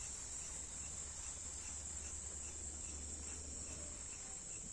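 Night insects chirring steadily in a high-pitched chorus, with a fainter chirp repeating about three times a second and a low hum underneath. The burning snake firework makes no distinct sound of its own.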